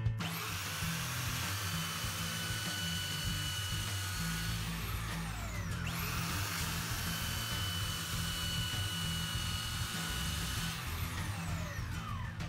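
Skil belt sander running with a 120-grit belt, sanding down the worn surface of a hardwood cutting board: a steady whir with a high whine, under quiet background music.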